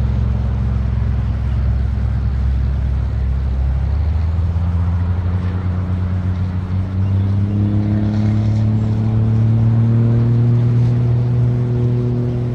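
Highway traffic: a loud, steady low drone of vehicle engines, with one engine note rising steadily in pitch from about four seconds in as a vehicle accelerates, then levelling off.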